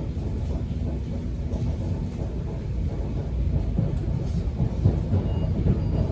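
Subway train running: a steady low rumble, with a few brief louder knocks between four and five seconds in.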